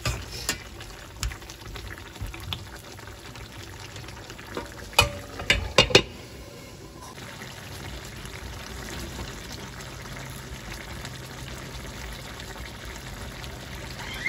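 Chicken and potato curry simmering and bubbling in a stainless steel pan, with a metal spatula clinking and scraping against the pan in the first few seconds. A few sharp, loud knocks come about five to six seconds in, then only the steady simmer.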